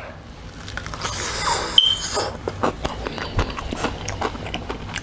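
Biting into and chewing crispy air-fried fried chicken close to the microphone: irregular crackling crunches of the breading with mouth sounds. A sharp click with a short high squeak about two seconds in.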